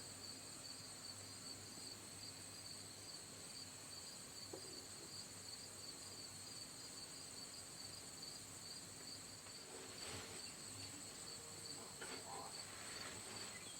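Crickets and other insects chirping in a steady, faint chorus, with two high-pitched trills running on together.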